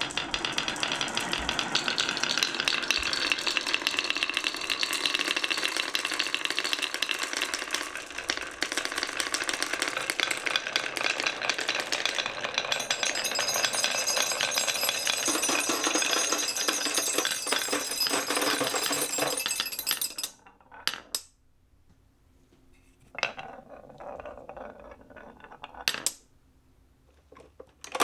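Many glass marbles rolling and clattering down wooden marble run tracks in a continuous rattle. From about halfway through, ringing notes from the marbles striking metallophone bars run over it. The clatter stops fairly suddenly near the end, leaving a few lone clicks and one short burst of rolling.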